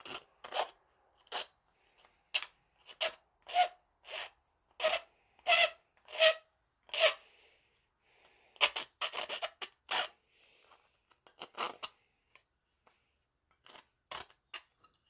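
Hand file rasping along the edge of a small aluminum hinge piece, deburring it: about a dozen even strokes at a little over one a second, then a short pause, a quicker flurry of short strokes, and a few more strokes near the end.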